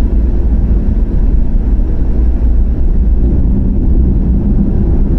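Car driving at a steady speed: a continuous deep rumble of road and engine noise, with no change through the stretch.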